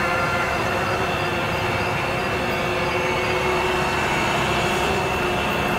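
Homebuilt tricopter's electric motors and propellers running steadily in flight, a constant hum with several held pitches.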